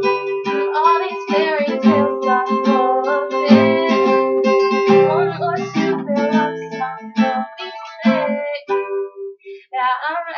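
Acoustic guitar playing, with a short pause near the end.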